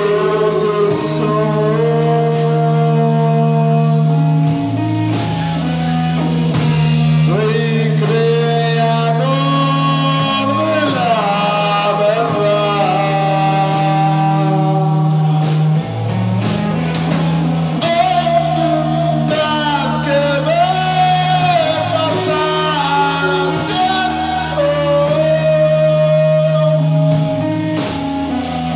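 Rock band playing live: electric guitar over a steady electric bass line, with a drum kit keeping time.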